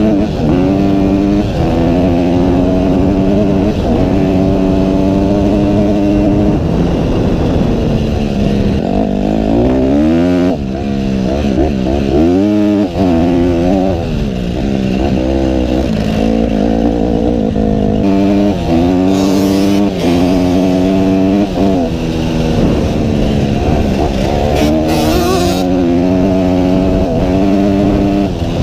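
Motocross bike engine running hard under the rider, holding steady revs for stretches and dipping and climbing again when the throttle is rolled off and reopened, once deeply about a third of the way in.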